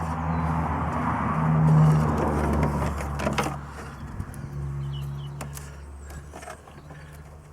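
A motor vehicle passing by: an engine hum and rushing noise that swell to their loudest about two seconds in and then fade away. A few light clicks and knocks of parts being handled follow.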